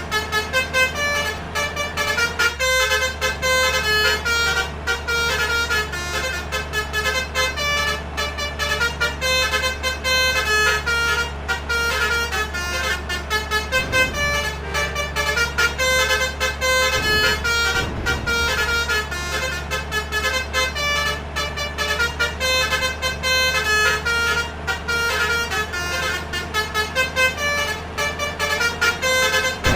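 Basuri multi-trumpet air horn on a bus or truck playing a fast telolet tune of short, rhythmic notes, several tones at once, over a steady low hum.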